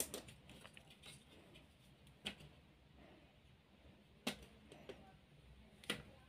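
A few light clicks of small parts being handled: a plastic spacer ring and a circuit board being fitted onto a mounting screw, the clicks one to two seconds apart over a faint background.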